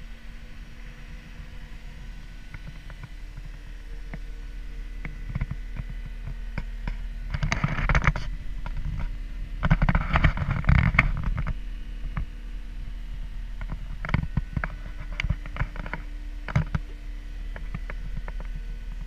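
Knocks, clunks and rustling as a person climbs into the cab of a Caterpillar 259D compact track loader, loudest in two bunches about eight and ten seconds in, then scattered single clicks, over a steady low hum.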